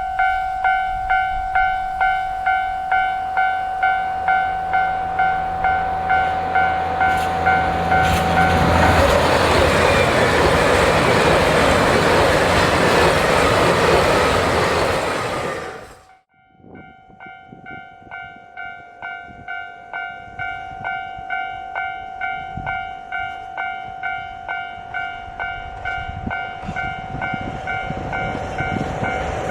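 Japanese level-crossing alarm bell ringing, an electronic clang pulsing about twice a second. About nine seconds in, a train passes over the crossing and its running noise drowns the bell for several seconds. At about sixteen seconds the sound cuts off abruptly, and the crossing bell starts again and grows louder.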